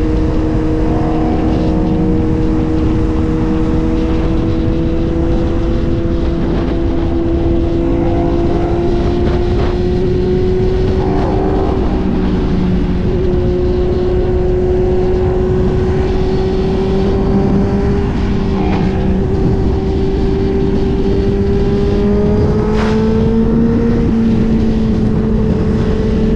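Suzuki GSX-R1000 sportbike's inline-four engine pulling at highway speed, its note climbing slowly with a brief dip about halfway and rising again near the end. Heavy wind rush on the microphone runs under it.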